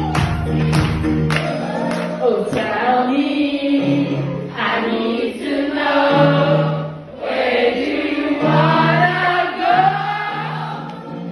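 Karaoke: several women singing along together into microphones over a pop backing track.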